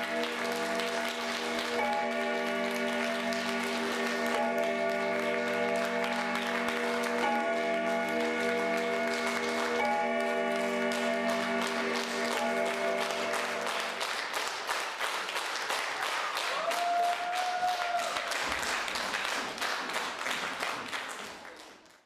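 An audience claps over the long held final chord of a song. The chord stops about fourteen seconds in, and the applause carries on alone and dies away near the end.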